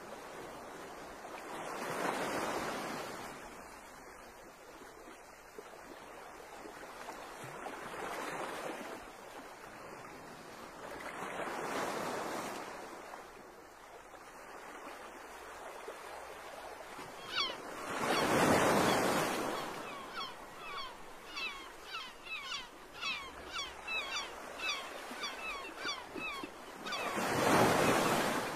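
Sea waves washing in slow swells of noise every few seconds, each rising and falling over about two seconds. From about two-thirds of the way in, a bird calls in a fast repeated series of short chirps, two or three a second.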